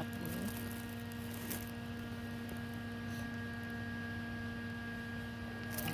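A steady electrical hum, a low tone with a few fainter higher tones over a faint hiss.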